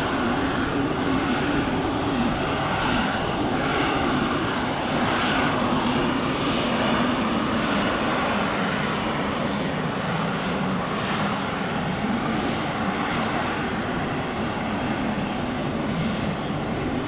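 Boeing 777 airliner's jet engines running with a steady, even rushing noise.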